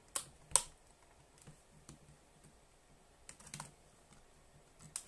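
Small, sharp plastic clicks and taps from handling and prying apart a Sony Walkman WM-50 cassette player's casing: two close together at the start, a quick cluster about three and a half seconds in, and another near the end.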